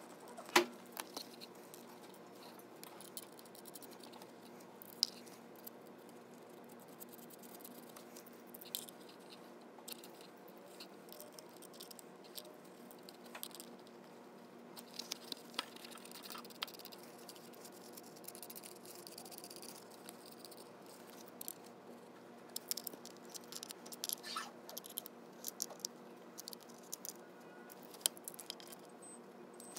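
Faint clicks, taps and scraping of a small screwdriver and hands working on a metal video receiver case as its screws are driven back in and the unit is handled. The sharpest click comes about half a second in, with more clicks clustered near the end, over a faint steady hum.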